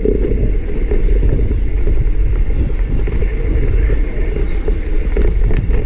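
Mountain bike riding over a rough dirt trail, heard through a camera mounted on the handlebar stem: a steady low rumble of tyres and frame vibration, with wind on the microphone and a few knocks from the rough ground.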